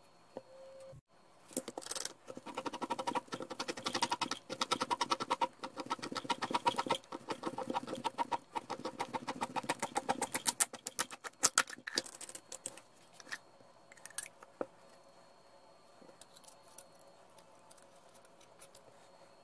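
Oil filter cutter slicing open the steel can of an ACDelco oil filter as the can is turned against the cutting wheel: a long run of rapid, even metallic clicks that stops about twelve seconds in, followed by a few scattered clicks and faint handling.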